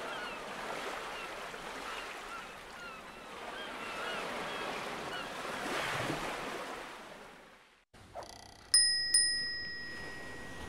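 Surf washing in with birds chirping, swelling and then fading out about eight seconds in; then a bell chime strikes twice in quick succession, bright and ringing, and slowly dies away.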